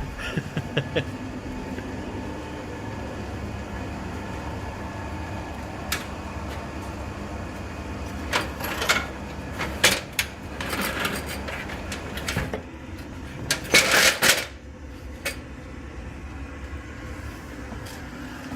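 Chinese diesel air heater running with a steady low hum, its noise coming from underneath the van. Scattered knocks and clatters of handling break in, several in a cluster over the middle of the stretch.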